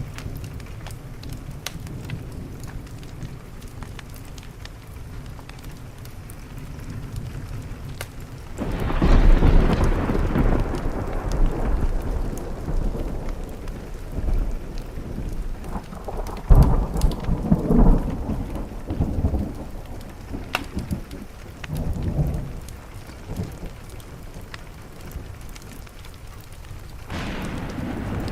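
Steady rain on a window with rolls of thunder: a long rumble about nine seconds in, another around seventeen seconds, a smaller one near twenty-two seconds, and a new one building near the end. Scattered sharp crackles run through the rain.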